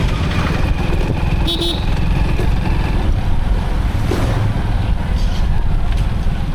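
Motorcycle running at riding speed, heard as a steady low rumble of engine and wind on the microphone. A short high beep sounds about a second and a half in.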